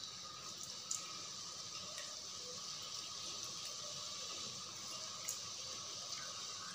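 Onions, green chillies and soaked basmati rice sizzling steadily in hot oil in a steel pressure cooker, with a light click about a second in and another about five seconds in.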